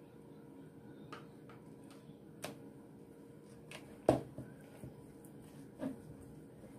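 Irregular clicks and knocks from dough being mixed in a plastic bowl, first with a fork and then by hand, the bowl shifting against the table; the loudest knock comes about four seconds in.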